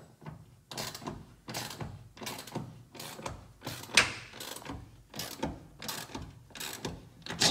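Hand ratchet wrench clicking in short repeated strokes, about two a second, as a nut is tightened down on an anchor bolt.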